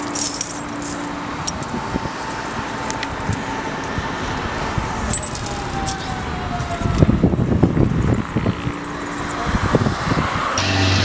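Glass chandelier crystals clinking and rattling as they are scooped and handled on a stone slab, with a busier patch of clatter about seven seconds in. Steady road traffic runs underneath, with a vehicle passing by midway.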